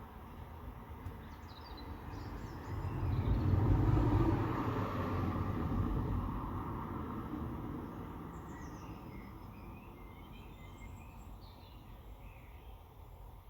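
A vehicle passes by, swelling to its loudest about four seconds in and then slowly fading away, while birds chirp.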